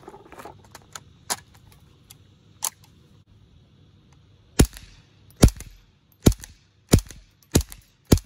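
A GSG AK-47 .22 LR rifle firing CCI Quiet-22 segmented hollow-point rounds at 710 feet per second: six sharp shots in quick succession, about one every 0.7 seconds, starting a little past halfway. A few light clicks of the rifle being handled and shouldered come before the first shot.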